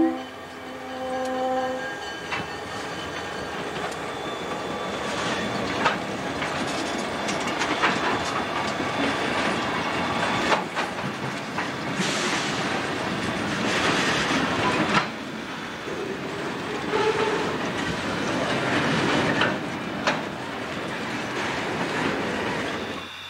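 A freight train passing at close range. A diesel locomotive's horn sounds a held chord of several tones that stops about a second and a half in. After that the cars' wheels rumble steadily past, with scattered clanks and clacks over the rail joints.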